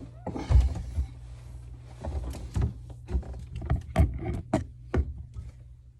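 A run of irregular knocks and clunks from handling around a bathroom vanity cabinet, with a faint steady hum underneath.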